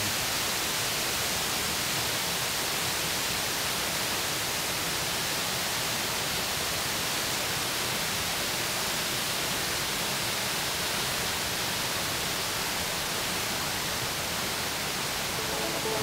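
Steady rushing of a waterfall and the cascading creek below it: an even, unbroken hiss of water. Music comes in near the end.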